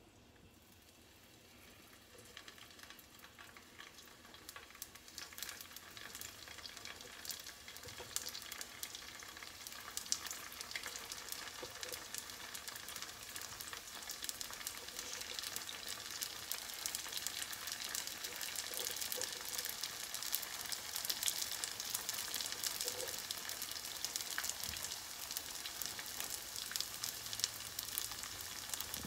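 Hot oil sizzling and crackling as egg-roll-wrapped shrimp tempura rolls deep-fry in a saucepan. The crackle starts faint and grows louder as more rolls go into the oil.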